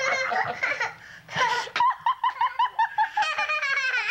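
Young children laughing and squealing, with a run of quick, high-pitched laughs about two seconds in.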